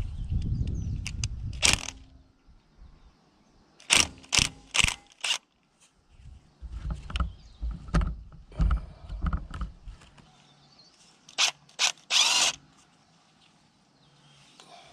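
Hand-tool work on the mini excavator's hydraulic fittings: scattered sharp metallic clicks and clanks, with a short burst of ratcheting about 12 seconds in, over intermittent low rumbling.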